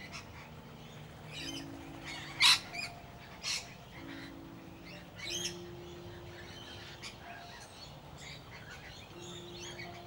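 A mixed flock of noisy miners and rainbow lorikeets calling with short, sharp chirps and squawks. Two calls stand out as the loudest, about two and a half and three and a half seconds in.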